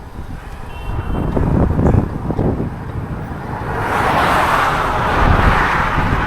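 A vehicle passing on the road, its tyre noise swelling to a peak about two-thirds of the way in and then easing off, with wind buffeting the microphone throughout.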